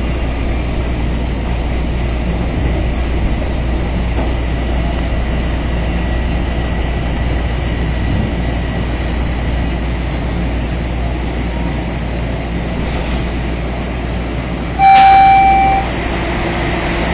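Toronto subway train running with a steady rumble as it arrives at a station. Near the end comes one loud steady tone, about a second long.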